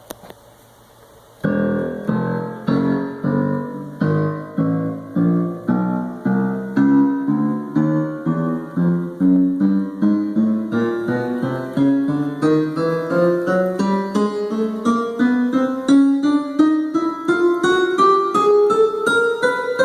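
Ensoniq SQ-2 synthesizer playing a piano-like sound through small plug-in speakers. The notes begin about a second and a half in, as a long run that climbs steadily in pitch, each note fading after it is struck.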